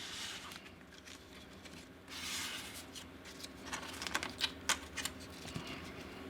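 Panini paper stickers being handled and sorted by hand: soft rustling and sliding of the stickers, then a run of light taps and clicks as they are put down.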